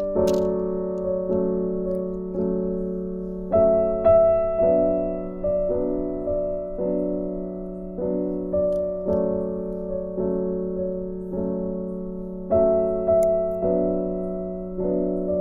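Background piano music: a slow, even series of soft chords, each struck and fading before the next.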